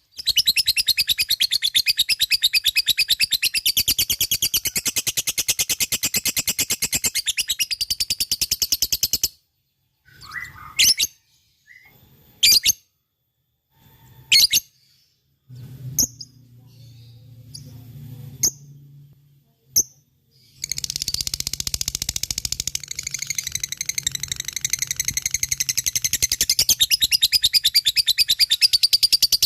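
Lovebird ngekek: long runs of rapid, evenly repeated high chattering notes. Two long runs are split by a pause of about 11 s that holds only a few single chirps.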